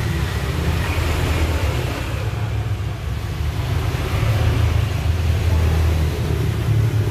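Steady low rumble with a noisy hiss above it, swelling and easing slightly.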